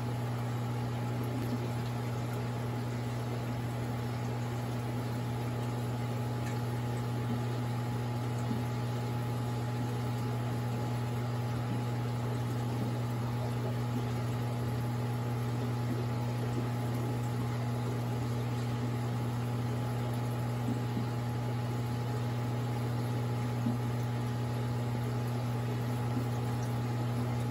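Steady low electric hum of aquarium pumps with water bubbling from the tank's air bubblers, and a few faint ticks.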